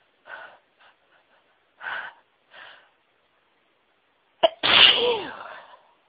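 A woman's sneeze building up: a few short, catching breaths, then one loud sneeze about four and a half seconds in. The sneeze has a sharp start and a voiced cry that falls in pitch as it fades.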